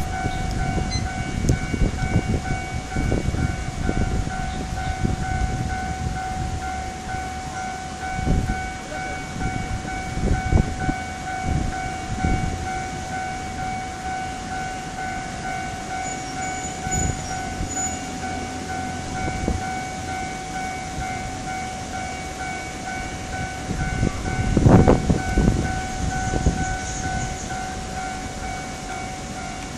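A steady high warning tone with overtones, pulsing evenly, over gusts of low rumble that swell loudest about 25 seconds in.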